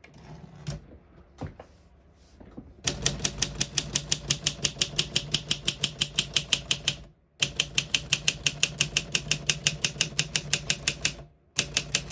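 Olympia SM4 manual portable typewriter: a few scattered clicks at first, then the type bars striking in a fast, even run of typing. The run stops twice briefly.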